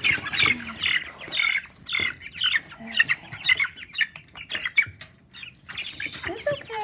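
Three-week-old Cornish Cross broiler chicks peeping and squawking in quick, overlapping high calls as one is grabbed out of the brooder and held; the calls are busiest in the first few seconds and thin out after that.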